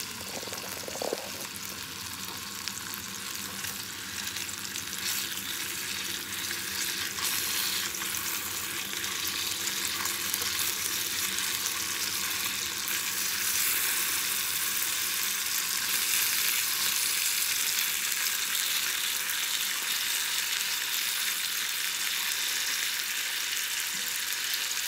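Longanisa sausages sizzling in hot oil in a frying pan, turned now and then with tongs. The sizzle grows louder over the first half and then holds steady.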